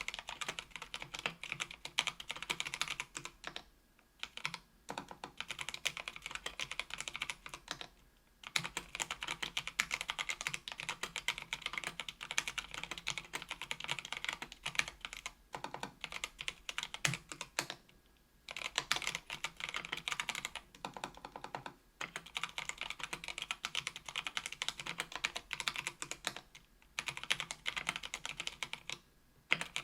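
Steady fast typing on a KBDfans Tofu 65% aluminium keyboard with stock, unlubricated Kailh Brown 50g tactile switches: dense runs of keystroke clacks broken by brief pauses every few seconds.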